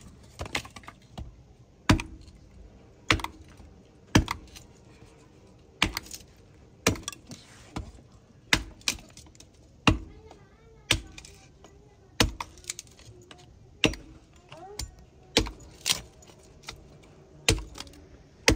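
Small hatchet chopping kindling on a wooden block: sharp knocks of the blade into the wood about once a second, some in quick pairs, as thin slats are split off.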